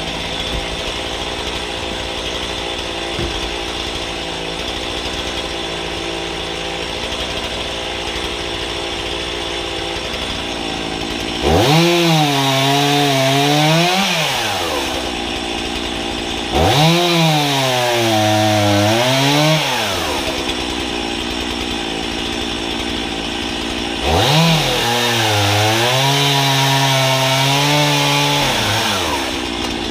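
Two-stroke chainsaw on a homemade pivoting guillotine frame idling, then revved to full throttle three times to cut through logs for firewood. Each cut lasts a few seconds: the engine pitch sags as the chain bites into the wood, climbs again as it cuts through, then drops back to idle.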